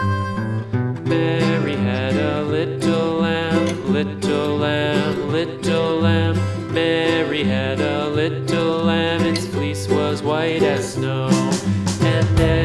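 Country-style instrumental music with plucked guitar and a steady beat.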